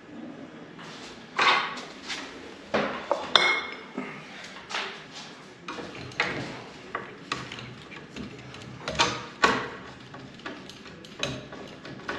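Irregular metallic clicks, clinks and knocks as a No. 2 Phillips screwdriver works the screws out of a ceiling fan's blade mounts and the metal parts knock together. One clink about three and a half seconds in rings briefly.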